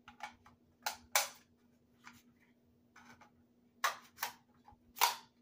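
Sharp metallic clicks and snaps of a 5.56×45 NATO cartridge being pressed into an AR-15 magazine, then the magazine being pushed into the rifle's magazine well; about ten separate clicks, the loudest about a second in and about five seconds in.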